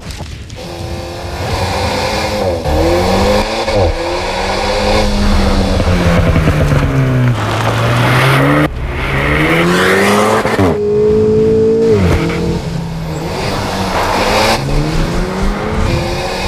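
Alpine A110's 1.8-litre turbocharged four-cylinder engine revving hard through the gears, its pitch climbing under acceleration and dropping away on the lift-offs and shifts, with several sudden breaks in the sound.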